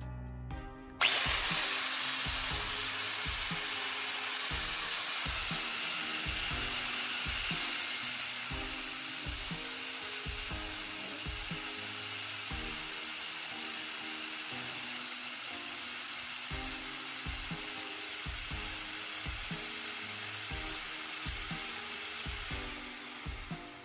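Angle grinder with an abrasive disc, starting suddenly about a second in and grinding a steel nail held in pliers: a steady, high, hissing grind that eases slightly from about halfway and dies away near the end.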